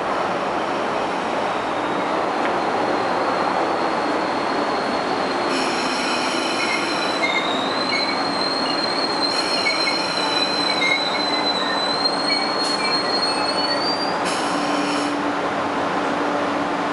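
An East Rail line electric multiple unit pulling into the platform with a long high wheel-and-brake squeal over a steady rushing noise. The squeal wavers and climbs near the end. Three shorter squeals with several tones at once break in about six, nine and fourteen seconds in.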